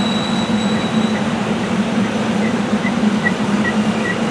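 SEPTA Silverliner IV electric multiple-unit train rolling past, with a steady rumble of wheels on rail and a constant low hum. A thin high whine fades out about a second in.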